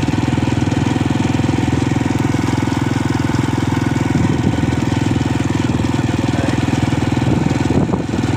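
Motorcycle engine running steadily while riding, a fast, even stream of firing pulses.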